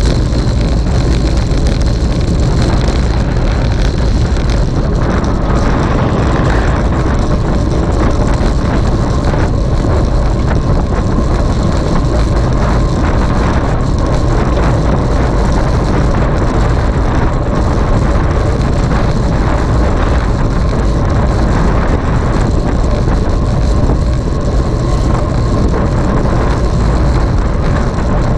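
Steady wind rush buffeting the microphone, with a low road rumble, from a camera on a moving bicycle.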